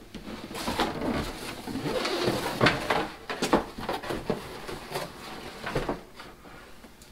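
Cardboard box being handled and turned over: irregular rustling, scraping and light knocks that die down near the end.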